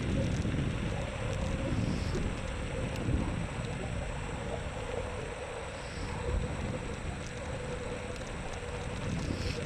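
Riding a Xiaomi M365 electric scooter: wind buffets the microphone over steady rolling noise, with a thin steady whine running underneath.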